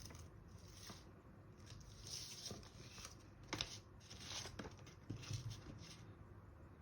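Packaging being handled: faint rustling and tearing of wrapping, in several short swells, with a sharp click about three and a half seconds in and another near five seconds.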